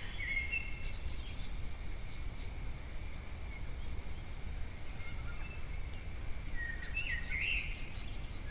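Birds calling in short chirps and whistles, scattered through, with a cluster of calls about seven seconds in, over a steady low background rumble.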